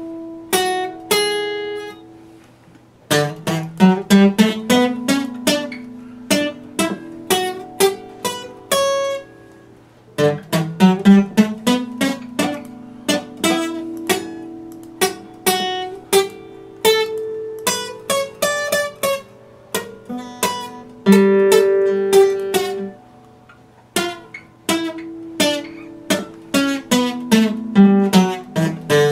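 Epiphone acoustic guitar played fingerstyle: single plucked notes and picked chords that ring and decay, in phrases with short pauses between them.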